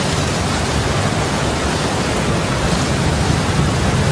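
Steady rushing noise of a heavy rainstorm sound effect.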